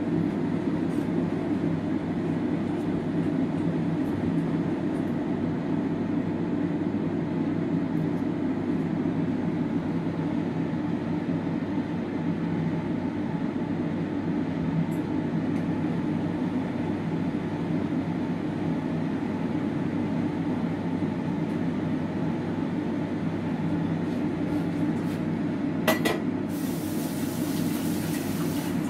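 A steady low mechanical hum. Near the end comes one sharp click, followed by a few seconds of high hiss.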